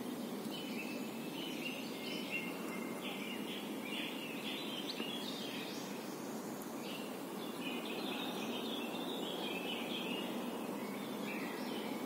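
Songbirds singing in short chirping phrases, with a brief pause a little past the middle, over a steady outdoor background hiss.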